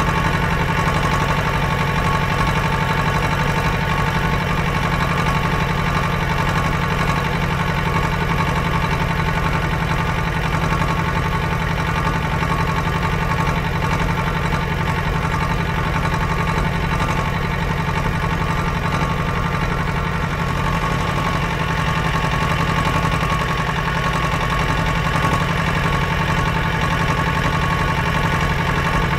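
An engine running steadily at idle, a continuous even drone that does not change.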